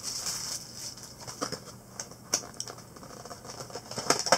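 Trading-card box, foil packs and cards being handled: scattered crinkly rustles and light clicks, with a louder rustle near the end.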